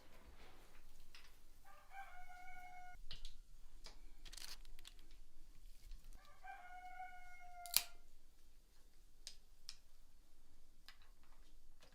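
A rooster crowing twice, each crow about a second and a half long and ending with a slight drop in pitch. Scattered sharp clicks and knocks, the loudest a single sharp click just before 8 s, right as the second crow ends.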